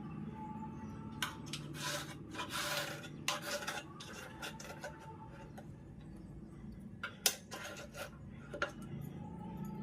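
A spoon scraping and rubbing grime out of a sliding window track in irregular short strokes, with a few sharp clicks as it knocks against the track.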